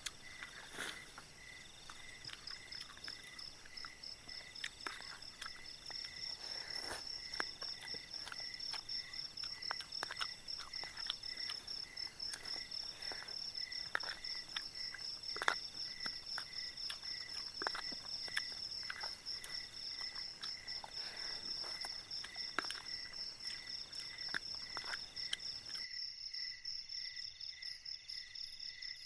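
Night chorus of crickets and other insects: several steady pulsing trills at different pitches, a higher one joining about two seconds in. Scattered clicks and scrapes of a spoon on a plastic plate during eating.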